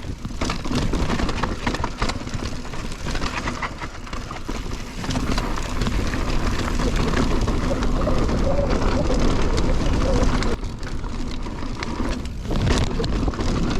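Mountain bike riding on a dirt trail: tyres crunching over gravel and rattling over bumps, with wind buffeting the microphone and a few short dips in loudness.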